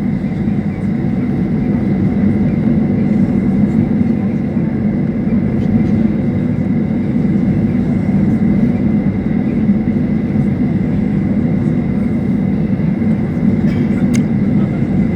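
Boeing 737-800's CFM56 jet engines running steadily with a constant low hum during taxi.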